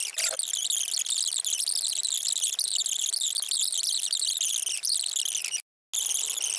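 A TV weather presenter's voice sped up many times over, turned into a high-pitched, rapid, unintelligible chattering. It cuts out for a moment near the end, then resumes.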